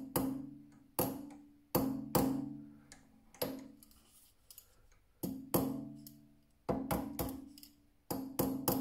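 Small hammer tapping on an Optimum TU 2004V mini lathe, about a dozen light strikes at irregular spacing, some in quick pairs. Each leaves a short ringing metal tone that dies away: the lathe part is being nudged into alignment while a dial indicator is watched.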